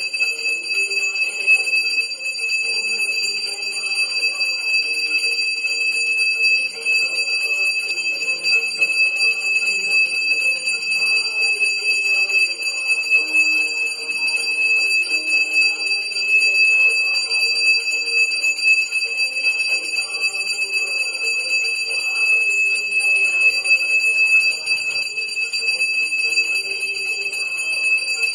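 Temple bell ringing continuously during the aarti lamp-waving: a steady, unbroken high-pitched ring with overtones, over a changing mix of lower sound.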